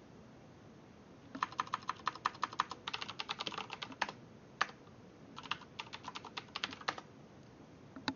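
Computer keyboard typing: quick runs of keystrokes broken by short pauses, then a single key press near the end.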